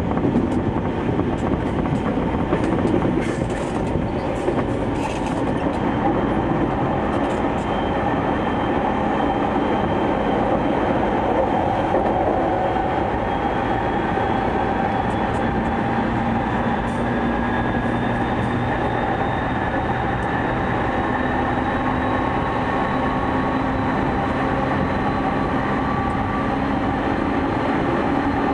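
JR East 209 series electric train running at speed, heard from inside a car: wheel-on-rail rumble with the hum and whine of the MT68 traction motors, the whine rising slowly in pitch through the second half. A few sharp clicks come about three to five seconds in.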